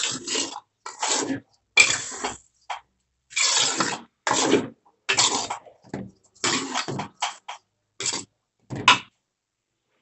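Metal ladle scraping and stirring through a thick fry in a large metal wok, in short irregular scrapes with brief gaps between them.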